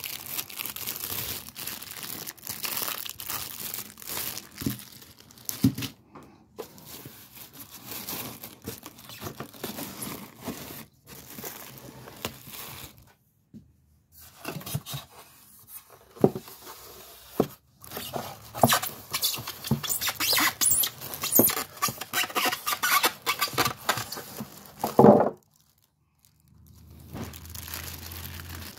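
Clear plastic packaging wrap crinkling and rustling in irregular bursts as it is handled and pulled off the parts of a boxed stand mixer. There are two brief pauses, and the loudest crinkling comes just before the second one, near the end.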